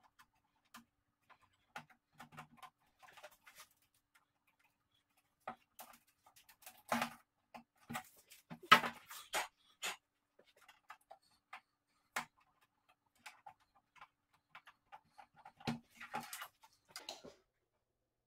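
Scattered small clicks, taps and rustles of hands working on a TV's metal backlight tray while a replacement LED strip is stuck down with double-sided tape. The noises come irregularly with short quiet gaps, the loudest bunch about seven to ten seconds in.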